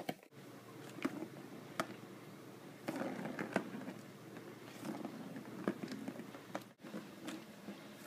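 Plastic ball knocking and rattling around the track of a circular cat scratcher toy as a cat bats it with its paw: irregular sharp clicks, several close together about three seconds in.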